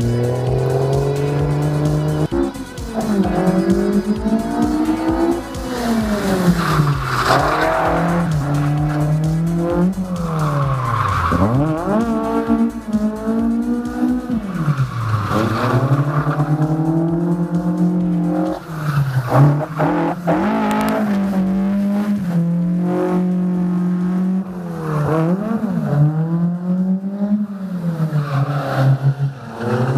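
Drift cars' engines revving up and down over and over as they slide, with tyre squeal during the drifts. The first couple of seconds hold a steady engine note before it breaks into repeated rising and falling revs.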